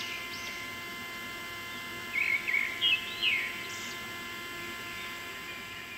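Small birds chirping in short, arched calls, a louder run of them about two to three and a half seconds in, over a steady electric hum.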